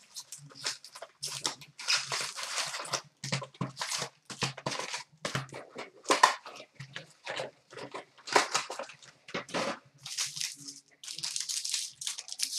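Hockey card packs being handled and torn open: irregular crinkling, rustling and tearing of the pack wrappers and the cardboard box they are pulled from.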